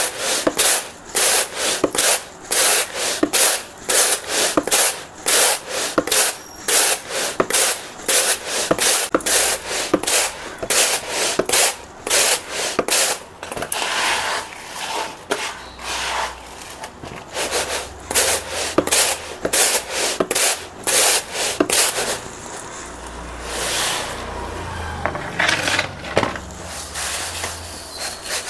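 Uncooked rice grains swishing and rustling in a plastic tray as it is shaken and the rice is worked by hand to clean it of dust, in quick repeated strokes about twice a second. The strokes thin out to a few separate swishes for the last several seconds.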